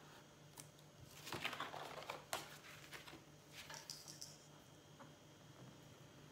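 Sheets of paper rustling and sliding over a cutting mat as they are shifted and turned, with a few light taps and one sharp click about two seconds in, then a second brief rustle.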